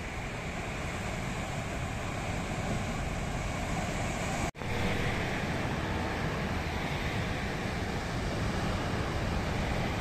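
Surf breaking and washing over the rocks below a cliff, a steady rush of water with wind buffeting the microphone. The sound cuts out for an instant about halfway through, then resumes.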